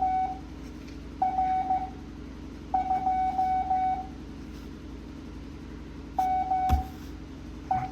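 Morse code practice tone, a steady beep keyed on and off in long and short stretches, sending characters at 7.5 words a minute. A single knock about two-thirds of the way through.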